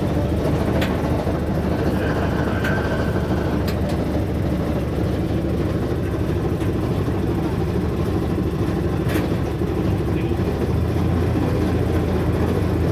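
Miniature tour train running steadily, a continuous low engine hum and rumble heard from an open passenger car, with a few sharp clicks.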